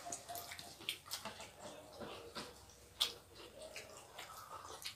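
Close-up eating sounds of people eating rice and fried food by hand: wet chewing, lip smacks and fingers squishing rice, with scattered small clicks and one sharper click about three seconds in.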